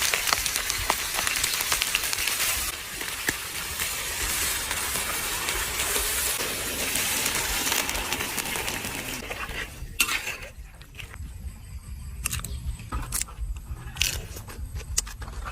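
Food sizzling in a hot pan. About nine seconds in, the sizzling drops away, leaving a low hum and a few sharp clinks, like utensils on cookware.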